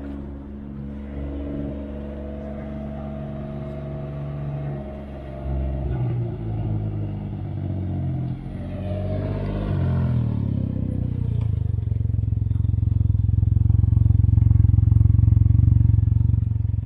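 Can-Am Ryker three-wheeler's engine and exhaust running, the pitch shifting and gliding about halfway through, then building to a louder steady run that is loudest near the end.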